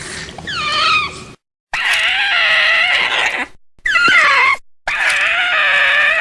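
Kaiju creature sound effects: a series of high-pitched, wavering screeching cries, each cut off abruptly by a moment of dead silence. A short falling cry comes first, then a long wavering cry about two seconds in, a short cry near four seconds, and another long cry from about five seconds.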